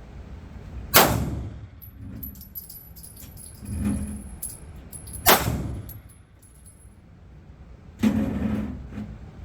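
9mm pistol shots at an indoor range: two sharp shots about four seconds apart, each with a ringing tail, then a third, duller bang near the end.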